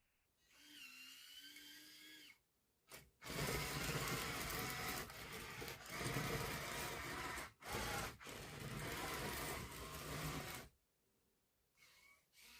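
Small electric gear motors of a Yigong 1:50 scale RC construction model. First a brief whine that wavers in pitch, then a louder grinding run of about seven seconds, broken by a few short stops.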